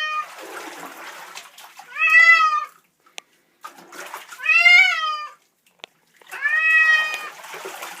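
Domestic cat yowling in protest at being bathed: three drawn-out yowls, each just under a second and about two seconds apart, after the end of another one at the very start.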